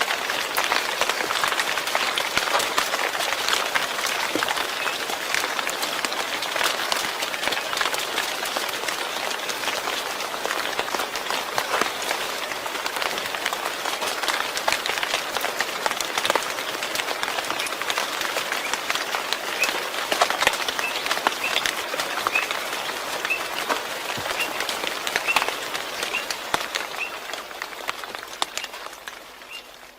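Steady rain falling, a dense patter of drops, fading out near the end. In the second half a faint short chirp repeats about once a second.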